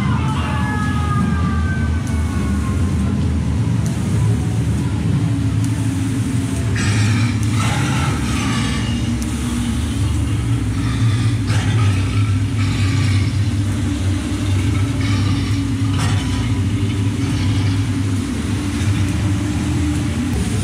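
Sound effects of an indoor rain-forest attraction: a loud, steady low rumble with several short bursts of hiss, and a falling whistle-like glide at the start.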